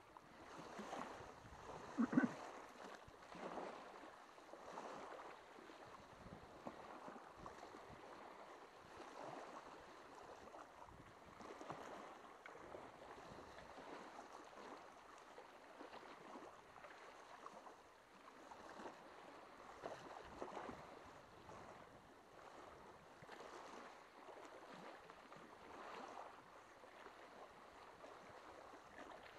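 Faint sea water lapping and sloshing against shore rocks, in small uneven swells, with one short louder sound about two seconds in.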